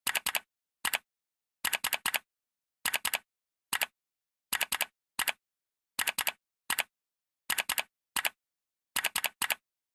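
Typing sound effect: short sharp key clicks, alone or in quick runs of two to four, about once a second, with dead silence between.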